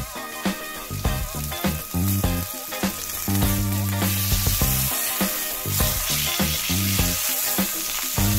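Steak searing in a hot cast iron pan, a steady sizzle that grows louder about halfway through as the steak is turned onto its raw side with tongs. Background music plays underneath.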